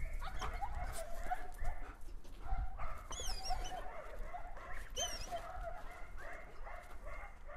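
Belgian Malinois whining, a string of faint wavering whines with a couple of higher squeaky ones.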